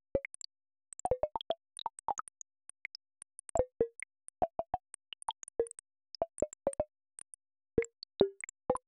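Earthquake data sonification: a string of short synthesized plops at varying pitches, irregularly spaced, several a second. Each plop marks one earthquake in the catalogue, its pitch set by the quake's magnitude.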